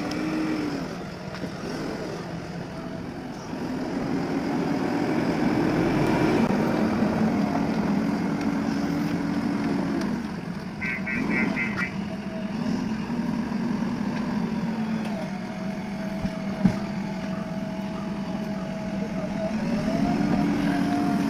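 JCB 3DX backhoe loader's diesel engine running under load, its revs rising and falling repeatedly as the machine works the dirt track. A single sharp knock comes about two-thirds of the way through, and a brief run of short high beeps about halfway.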